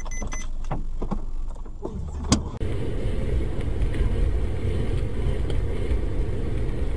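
A few short high beeps, then scattered knocks and one sharp bang about two seconds in. After that comes the steady low rumble of a car driving, heard from inside the cabin.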